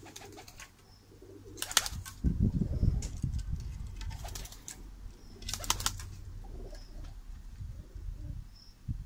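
Pigeons cooing and flapping their wings at close range, with two sharp rustling bursts of wings about two and six seconds in. A loud low rumble runs for about a second after the first burst.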